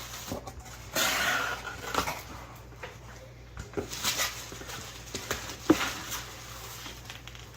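Shipping packaging being handled: a rustle of plastic wrapping about a second in, then scattered clicks and taps.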